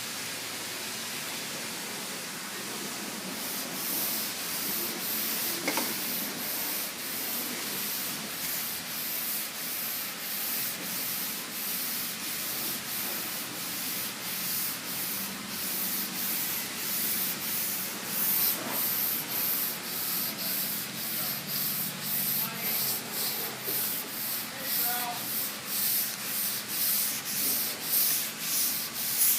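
Curvecaster sanding board rasping back and forth over a primed car body panel, hand block-sanding through the guide coat in even strokes about one and a half times a second. The strokes begin a few seconds in, after a steady hiss.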